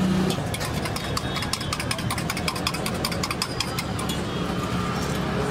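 Rapid, irregular clicks and taps of utensils and eggs against small steel pots as eggs are cracked, over a steady background hum of street traffic.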